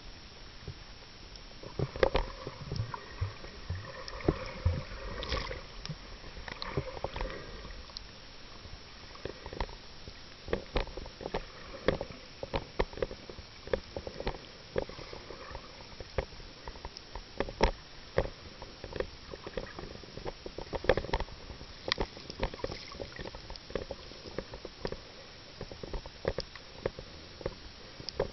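Muffled underwater sound picked up by a submerged camera: a steady wash of water noise with many irregular sharp clicks and knocks as a snorkeler swims close by.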